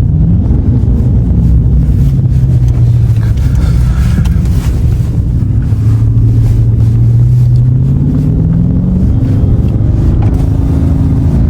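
Dodge Charger Scat Pack's 6.4-litre 392 HEMI V8, with a mid-muffler delete, cruising with a low steady exhaust drone. The revs sink slightly, then climb about eight seconds in and hold higher toward the end.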